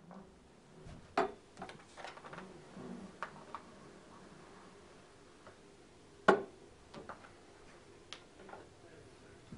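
Metal cross rail handled on a table while it is slid through a fabric banner hem: scattered clicks, knocks and light scraping. The loudest knock comes about six seconds in.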